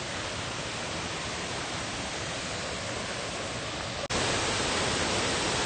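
Waterfall rushing in full flow, heard as a steady even roar. It cuts off sharply about four seconds in and comes back louder.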